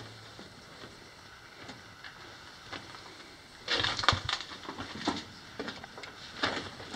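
Crunching and scraping of footsteps on a loose-rock mine floor. A burst of crunches comes about four seconds in and another near the end; the rest is faint.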